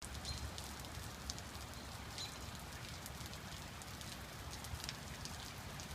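Steady rain falling, with many sharp ticks of single drops landing close by.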